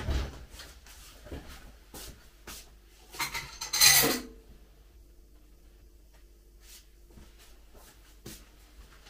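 Dishes being handled at a kitchen counter: a thump, a few light knocks, then a louder clatter of crockery lasting about a second, followed by a faint steady hum.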